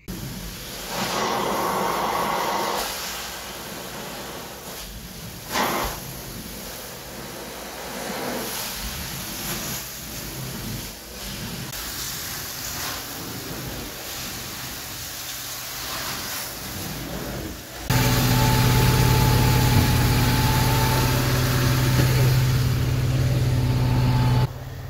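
Carpet extraction wand worked over thin commercial low-pile carpet, with the vacuum sucking up the hot water as it goes: a steady rushing noise with a few louder swells. About eighteen seconds in it gives way suddenly to a much louder, steady machine hum.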